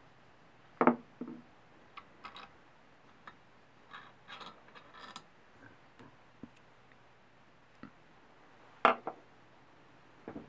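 Small metal engine parts and tools being handled on a wooden workbench. There are two sharp knocks, about a second in and near the end, with scattered light clicks and taps between them.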